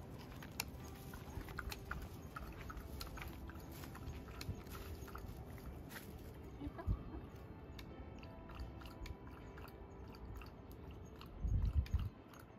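Shiba Inu lapping water held out in a person's hand: a quick, irregular run of small wet licking clicks, with faint music underneath. A brief low thump comes near the end.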